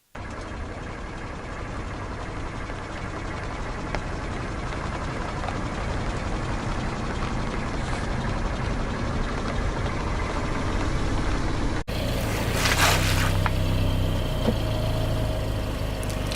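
Car running with a steady engine and rumbling noise that grows slowly louder. About twelve seconds in, the sound cuts abruptly to a steadier low engine hum with a few short crackling bursts.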